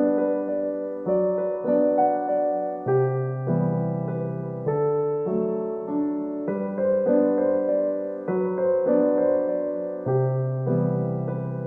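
Slow, gentle keyboard music on piano or electric piano: soft notes struck under a second apart over held chords, with a deep bass note coming in twice.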